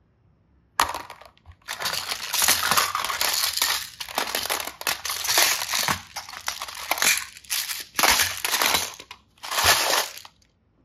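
Hard plastic toy containers, clear boxes filled with beads and flower-shaped slime cases, clattering and rattling against each other as a hand rummages through a plastic basket. It comes in a run of bursts with short pauses and stops shortly before the end.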